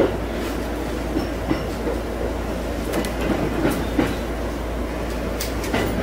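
JR East E231-series electric train running over points and rail joints, heard from inside the leading car: a steady running rumble with irregular wheel clicks and knocks, more frequent in the second half.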